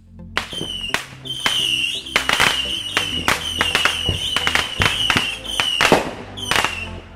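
Fireworks going off in quick succession, sharp bangs about twice a second, most with a short high whistle, over background music.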